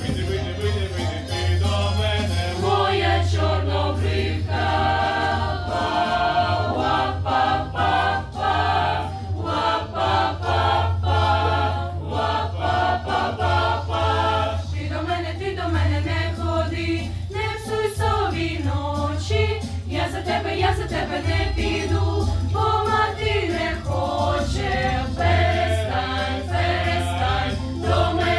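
Mixed choir of women's and men's voices singing a Ukrainian folk song in harmony, with a steady low tone running underneath.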